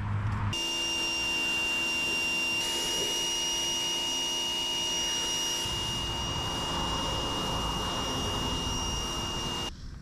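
A motor running with a steady high whine, switched on about half a second in and cut off abruptly just before the end.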